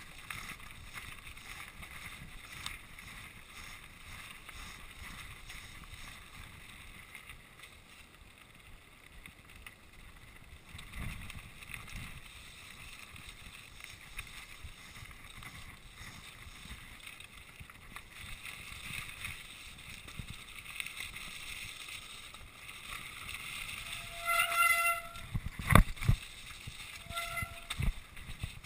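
Mountain bike rolling down a rough, rocky track: a steady rattle and rumble of tyres and bike over stones. Near the end come two hard knocks and several short, high brake squeals.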